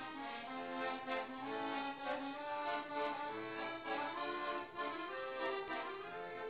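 Background music: an accordion playing a melody.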